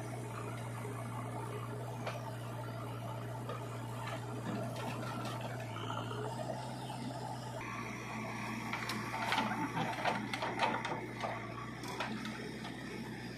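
Diesel engine of a JCB 3DX backhoe loader running steadily as the backhoe swings a bucket of soil over a tractor trolley. Between about nine and eleven seconds in, the soil is dumped into the trolley with a burst of clattering knocks.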